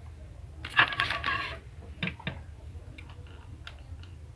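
Metal clatter and clinking about a second in, lasting under a second, then two sharp clicks and a few light ticks: a metal screwdriver and tools being handled at the hook of an industrial straight-stitch sewing machine, just before the hook screws are loosened to retard the hook timing.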